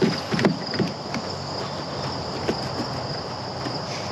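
Steady high-pitched insect chirring in the background, with a few light clicks and knocks in the first second.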